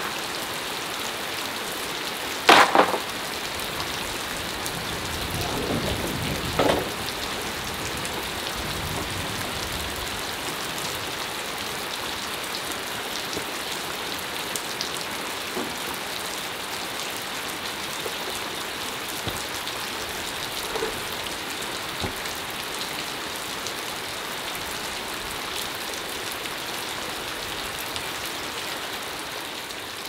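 Heavy rain falling steadily. Bamboo poles knock now and then as they are handled: a loud double knock about two and a half seconds in, a few more around six to seven seconds, and a faint one later on.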